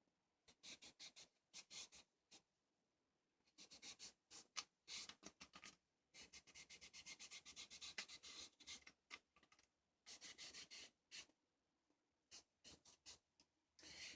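Faint, quick rubbing strokes of stain being worked onto string wound around a small wooden base. The strokes come in runs broken by short pauses.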